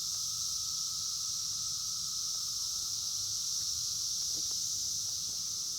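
Steady high-pitched insect chorus outdoors, an unbroken shrill drone, with a low hum underneath.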